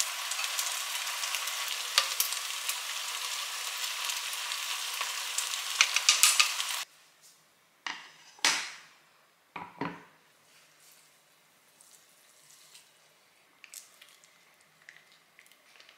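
Bulgogi sizzling in a frying pan on a gas stove, with a few clicks of stirring, until the sound cuts off about seven seconds in. After that come a few knocks and clunks as the pan is set down by a wooden trivet, then only faint small crinkles.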